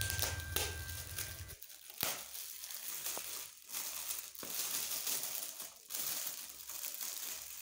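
Shiny metallic gift wrap crinkling and rustling in uneven bursts as it is torn open and pulled off a present by hand.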